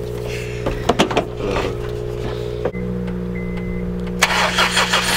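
A vehicle engine idling steadily while jumper cables are connected, with a few sharp clicks from the cable clamps about a second in. Near the end a louder rushing noise joins in.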